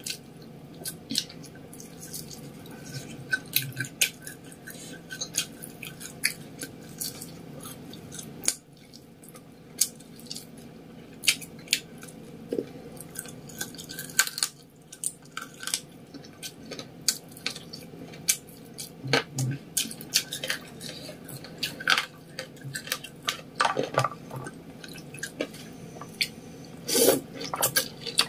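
Close-up eating sounds: chewing battered fried snacks (gorengan), with many short wet mouth clicks and smacks. Near the end, noodles are slurped from the bowl.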